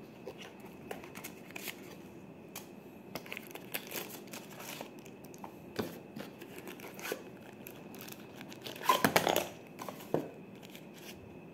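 A cardboard box and plastic packaging being handled: soft, scattered rustles and small taps, with a louder rustle about nine seconds in.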